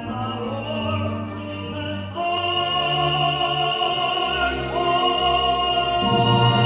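Operatic singing over a full symphony orchestra playing live, with long held notes; the music swells louder about two seconds in and again near the end.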